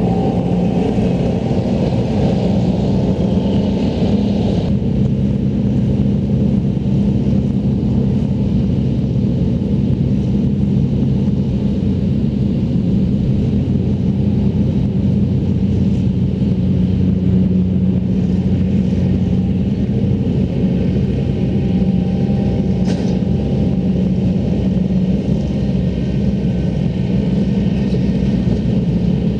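Tractor diesel engine running steadily under load, driving a McHale 550 round baler. A higher hiss drops away about five seconds in.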